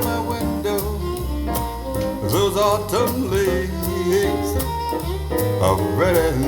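A song with a singing voice over instruments and a steady bass line, played back through hi-fi loudspeakers driven by an Elekit TU-8900 2A3 tube amplifier and picked up from about half a metre in front of a speaker.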